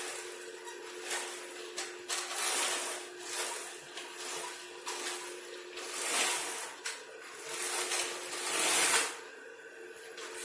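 Mini electric motor of a homemade toy vacuum cleaner spinning its propeller fan with a steady hum, under repeated swells of whooshing, hissing noise as the remote-control car runs.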